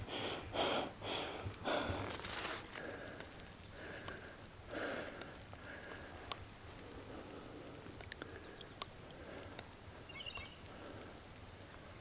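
Footsteps of a hiker walking through meadow grass and brush, about two steps a second, stopping after about two and a half seconds. Then a quieter stretch with a steady high-pitched tone and a few faint rustles.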